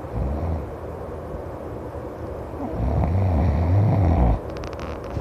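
A person snoring loudly: a short low snore at the start, then one long, deep snore about three seconds in that lasts nearly two seconds and stops abruptly. A quick run of sharp clicks follows near the end.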